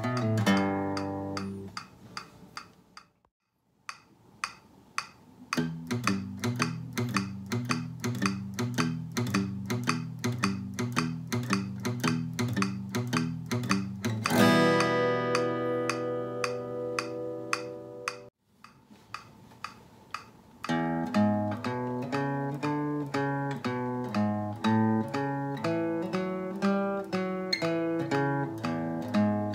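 Steel-string acoustic guitar played with a pick in three short exercises. First, the tail of a country ending phrase. Then a swung rhythm played with alternate picking, ending on a ringing chord about halfway through. After a short break comes an alternating bass-note-and-chord pattern, with steady ticking keeping time underneath.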